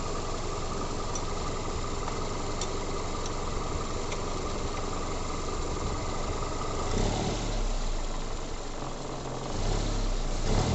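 Toyota Corolla four-cylinder engine idling steadily with a thin steady whine. About seven seconds in, an uneven deep rumble sets in and comes and goes: the thick knocking noise that appears under air-conditioning load, which the owner traces to the poly-V belt tensioner's damper vibrating.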